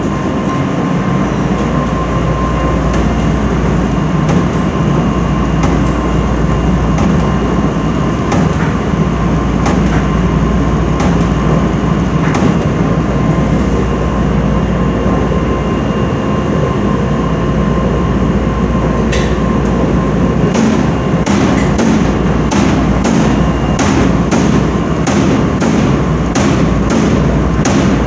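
Commercial laundromat tumble dryer running loud: a steady rumble and hum with regular knocks from the tumbling drum, about one a second at first and two or three a second in the last third.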